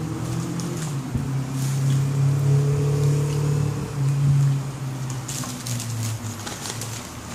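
A steady low engine-like hum with a few pitched tones, dipping briefly a couple of times. About five seconds in it is joined by crackly rustling of paper food wrappers.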